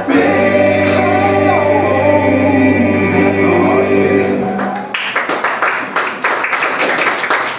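A song with singing ends on a long held final chord, and about five seconds in an audience breaks into applause.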